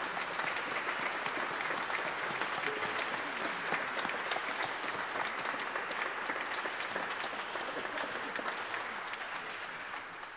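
Audience applauding, a dense steady clapping that dies away at the very end.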